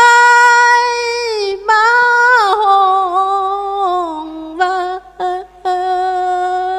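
A woman singing solo and unaccompanied into a microphone in Thai sorapan-style Buddhist devotional chant-song. She holds long notes that slide up and down, with short pauses for breath about four and five seconds in.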